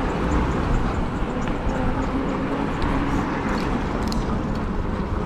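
Steady street traffic and road noise with a low rumble, picked up on the move from a riding e-bike.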